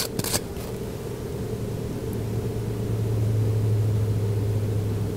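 A steady low hum that grows slowly louder, with a couple of faint clicks right at the start.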